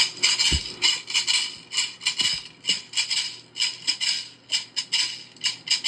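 A handheld shaker played in a steady rhythm, about four shakes a second.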